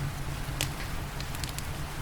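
Wood fire crackling in a fireplace: a handful of sharp pops, one about half a second in and a quick cluster around a second and a half in, over a steady low rumble and a soft hiss of rain.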